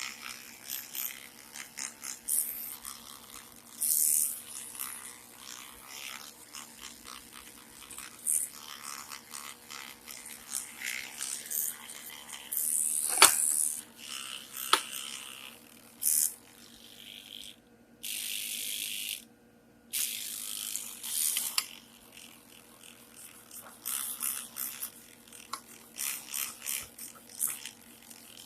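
Hands cleaning small metal parts of a rusty antique sewing machine: irregular scrubbing and scraping with light metallic clicks and rattles, one sharp knock about 13 seconds in, and a short steady hiss a few seconds later.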